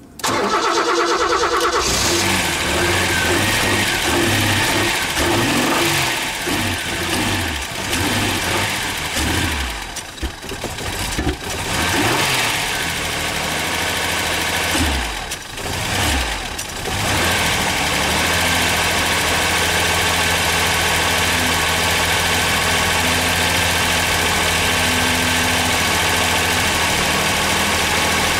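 Ford Sierra 2.8-litre Cologne V6 on K-Jetronic injection cold-started: the starter cranks for under two seconds and the engine catches. For about fifteen seconds its speed rises and falls unevenly, dipping low twice, before it settles into a steady idle. It is a rough cold start that the owner puts down to bad injectors.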